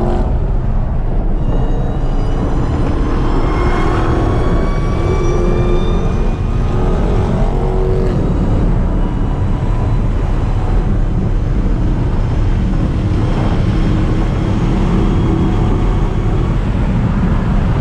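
Dodge Charger SRT Hellcat's supercharged V8 running under way, a loud steady low rumble mixed with road noise, with thin whines that climb slowly in pitch now and then as the car pulls.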